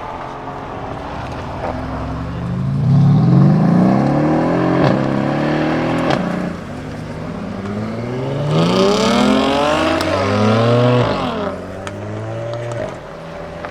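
A supercar's engine accelerating hard away from standstill, its note rising in pitch and dropping back at each upshift several times over.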